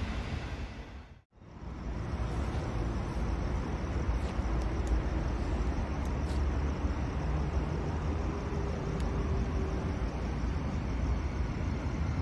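Low steady rumble of an approaching SMU-class electric train, still some distance off. The sound drops out briefly about a second in and then returns.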